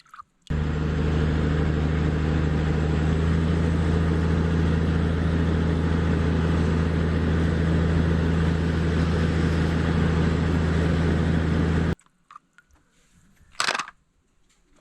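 A motor running with a steady low drone. It starts abruptly about half a second in and cuts off suddenly about twelve seconds in.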